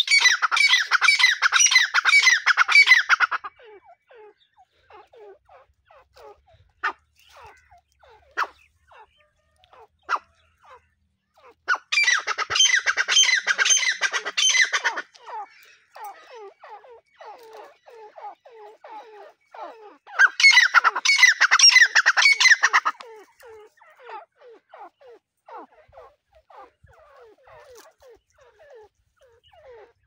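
A pair of grey francolins (teetar) calling: three loud bouts of rapid, harsh repeated notes, one at the start, one about twelve seconds in and one about twenty seconds in, with softer scattered notes between.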